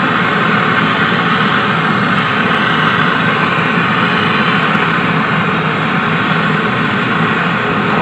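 Gas brazing torch burning with a steady hiss while a refrigerator condenser pipe joint is brazed.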